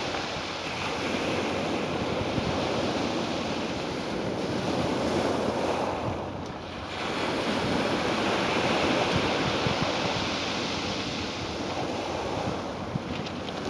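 Ocean waves surging and washing in a continuous rush that swells and eases, with a brief lull a little past halfway.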